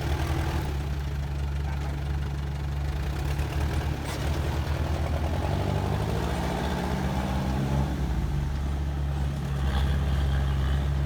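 A heavy machine's diesel engine running steadily at low revs. Its pitch rises briefly about six seconds in and settles again about two seconds later.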